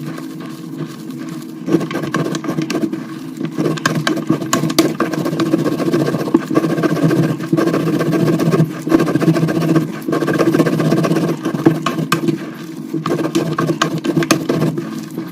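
Coloured gym chalk hearts being broken and crushed: a continuing run of crunches and small sharp cracks, over a steady low hum.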